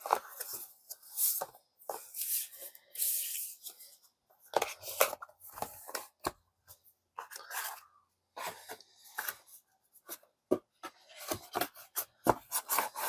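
Handling of a book-style Blu-ray case: a disc slid along its cardboard sleeve, the cardboard case closed and its cover rubbed and slid in the hands. Irregular scrapes, rubs and sharp taps follow one another with short pauses between them.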